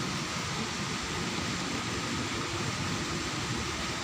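Steady background hiss with an uneven low rumble and a faint steady tone, with no distinct events.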